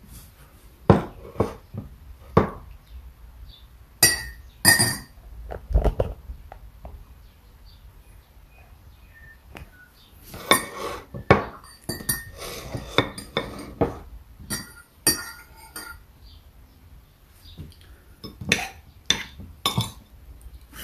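Kitchenware being handled: dishes, pans and utensils clink and knock in irregular bursts, a few of the clinks bright and ringing.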